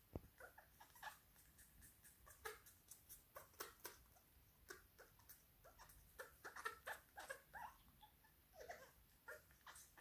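A Senegal parrot making a string of short, soft clicks and squeaks at an irregular pace, coming thickest around six to eight seconds in.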